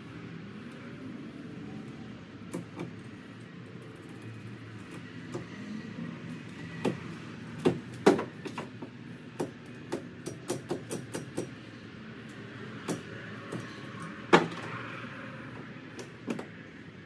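Scattered knocks and clunks of a trailer axle and its wooden pallet being handled in a pickup truck bed. A run of quick knocks comes about nine to eleven seconds in, and the loudest single knocks come about eight and fourteen seconds in.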